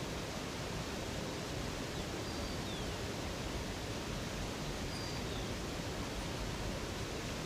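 Steady rushing of flowing water from a river cascade. A few faint, short, high bird chirps come through about two and five seconds in.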